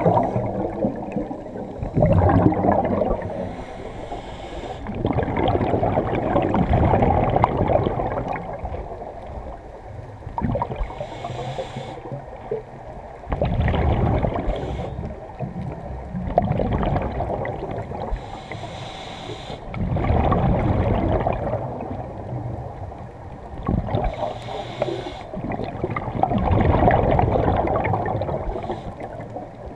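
Scuba regulator breathing heard underwater: a hiss through the regulator on each inhale and a rush of bubbles on each exhale, one breath cycle about every six to seven seconds.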